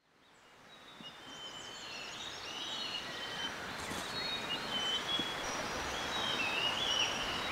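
Forest dawn ambience fading in from silence: several birds singing short whistled, gliding phrases over a steady background hiss.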